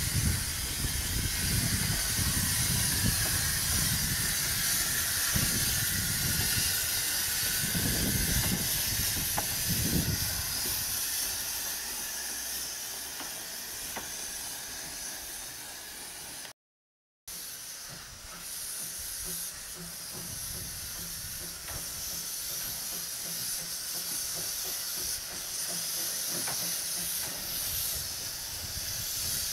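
Quarry Hunslet narrow-gauge saddle-tank steam locomotive standing with a steady hiss of escaping steam. Irregular low rumbles run under it for the first ten seconds or so, and a brief gap breaks the sound just past halfway.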